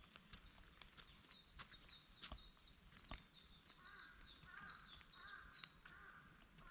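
Faint rain dripping in a forest, scattered drops ticking at irregular moments. A songbird sings a fast run of short, high notes from about a second in until near the end, and a lower repeated phrase joins it in the second half.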